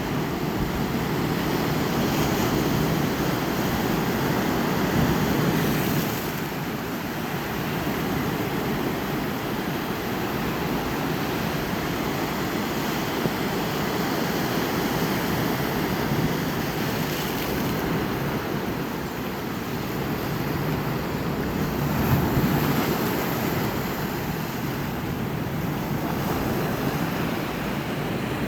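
Ocean surf: a continuous wash of breaking waves that slowly swells and eases.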